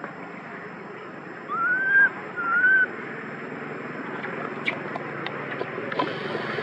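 Baby long-tailed macaque crying: two short, high, arching whimpers in quick succession about two seconds in, over a steady outdoor background hiss.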